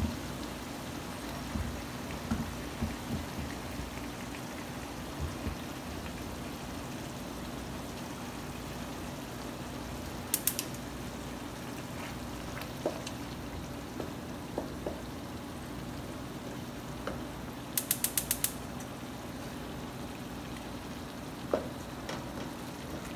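Meat and tomato pasta sauce sizzling in a frying pan over a steady low hum, with a few sharp clicks and a quick run of about six clicks about three-quarters of the way through.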